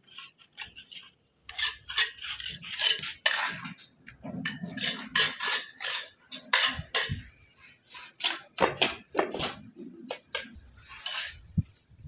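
Stone-cladding work: irregular short scrapes and clinks of tools working mortar against stone, with a few duller knocks.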